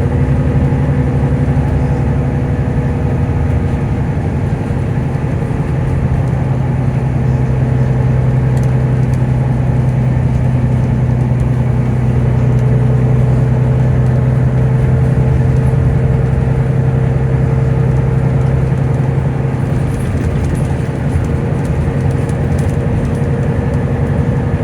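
Volvo B9TL double-deck bus's engine cooling fan running with the engine idling: a loud, steady drone with a low hum that grows a little stronger midway through.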